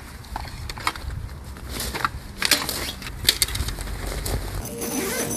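Irregular crinkling, rustling and sharp clicks of things being handled, over a low rumble. Background music comes in near the end.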